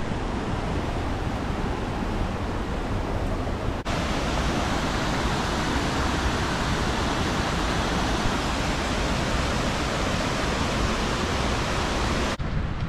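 Mountain stream rushing over boulders: a steady wash of water noise, a little louder after a cut about four seconds in.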